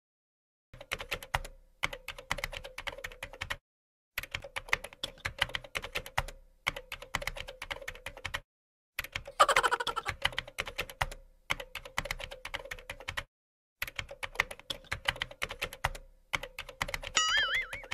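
Keyboard typing sound effect: rapid key clicks in runs of one to three seconds, broken by short silent pauses, with a louder clatter about halfway through. A short wavering tone sounds near the end.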